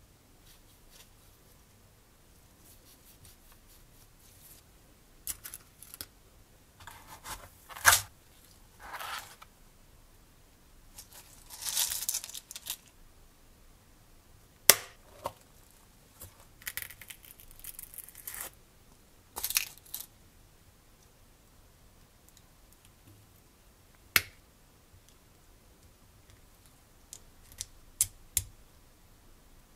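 Gloved hands handling small metal model-engine parts and plastic packaging: several bursts of rustling and crinkling, and scattered single sharp clicks of parts being picked up and set down, two of them close together near the end.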